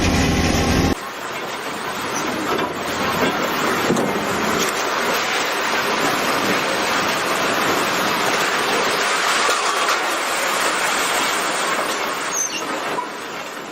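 Sawmill machinery running: a steady machine hum cuts off abruptly about a second in, giving way to a continuous rushing, grinding noise.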